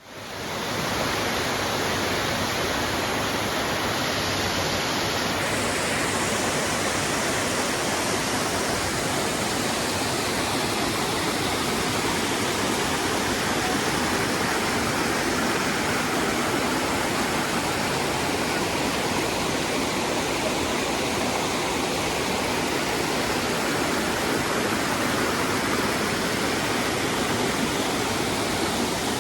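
Waterfall running steadily: a loud, even rush of falling water that fades in at the start.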